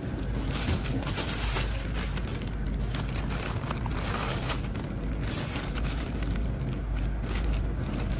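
Plastic mesh bags of small potatoes rustling and crinkling as they are handled, over a steady low rumble.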